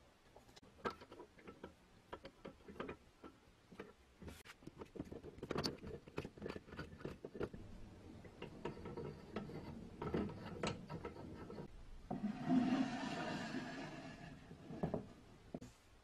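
Scattered clicks and small knocks of wood and metal as the oiled wooden handle is worked onto the crank arm of a Peugeot Frères A1 coffee grinder. About twelve seconds in comes a louder scraping rub of the wooden drawer sliding into the grinder's wooden box, ending in a knock.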